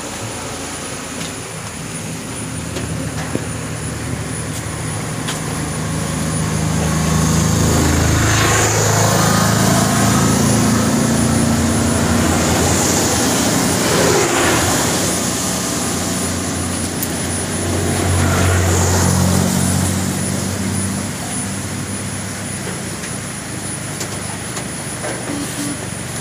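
Road traffic passing close by on a roadside: vehicle engines build up and fade again, with the loudest passes about nine and nineteen seconds in and a third in between.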